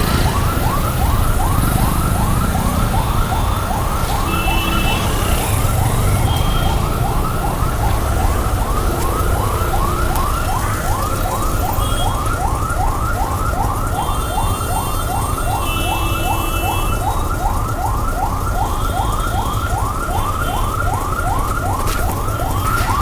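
Ambulance siren in a fast yelp, a rising sweep repeated about three times a second, over the steady rumble of heavy traffic, with vehicle horns honking off and on.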